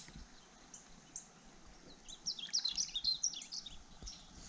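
Wild birds chirping and singing, a quick run of high chirps about two seconds in, over a quiet riverside background.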